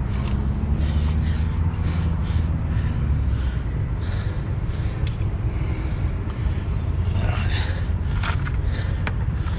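A heavy vehicle's engine running steadily with a low rumble, and a few light metallic clicks from bolts being refitted to the axle hub cover.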